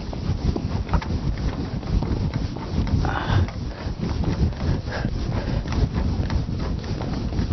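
Whiteboard duster scrubbing back and forth across a whiteboard, a rapid rough rubbing in many short strokes, over a low rumble.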